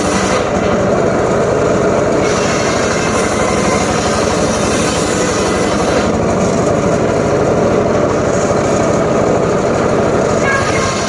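Homemade engine-driven circular saw running steadily at full power. The high part of its noise fades and returns, about one and six seconds in.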